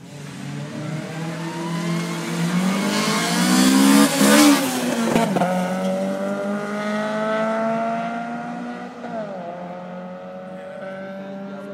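A street car accelerating hard past: the engine note rises as it approaches, is loudest and drops in pitch as it passes about four to five seconds in, then climbs again as it pulls away, with a gear change about nine seconds in.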